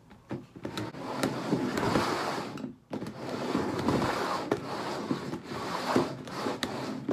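Upturned plastic bowls sliding and scraping across a tabletop as they are shuffled, with scattered light knocks and a short pause partway through.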